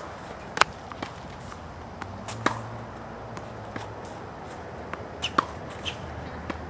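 Tennis ball struck by a racket on forehands and bouncing on a hard court: a few sharp pops, the loudest just after the start and another pair about five seconds in, with lighter shoe scuffs between.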